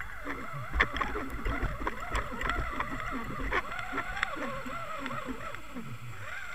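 Sound picked up underwater by a camera on a fishing line as it is hauled up: water noise with many wavering tones that rise and fall about twice a second, and a few knocks.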